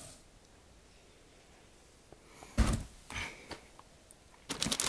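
Packaging contents being handled in a cardboard box: a quiet stretch, then a soft thump and rustle about halfway through, and crinkling of wrapping starting near the end.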